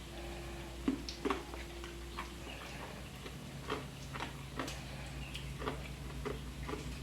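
Irregular light clicks and taps from cooking, roughly two a second, over a low steady hum.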